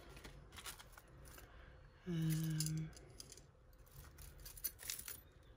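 Faint clicks and light rattles of costume jewellery pieces being picked up and handled while sorting, with a short, steady hummed "mm" from a person about two seconds in.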